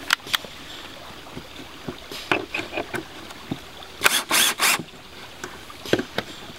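Scattered knocks and taps on wooden boards, with three short harsh rasping strokes about four seconds in.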